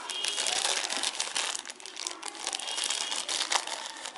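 Thin white wrapping being crinkled and pulled open by hands: a continuous run of small crackles and rustles as it is unfolded from around a cable.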